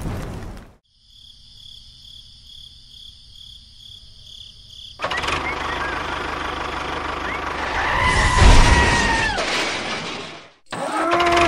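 A loud tractor engine sound comes in suddenly about five seconds in and runs rough and steady, with whines that fall in pitch near the end before it cuts off abruptly. Before it, rain dies away and a faint pulsing high chirp repeats steadily.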